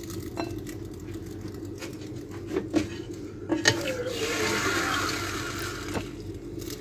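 Chicken yakhni ladled from a pot onto a plate: a metal ladle knocks and clinks against the pot and plate several times, then broth splashes and pours for about two seconds, over a steady low hum.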